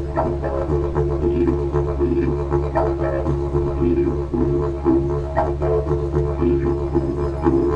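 Spiral didgeridoo keyed in C#/D, played as an unbroken low drone, with the player's mouth and tongue shaping a rhythmic pattern of shifting overtones above it.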